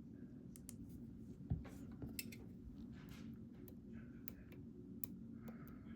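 EVVA ICS dimple lock being picked: small, scattered clicks of the pick and tension tool working the pins and sliders in the keyway, with one louder knock about one and a half seconds in, over a low steady hum.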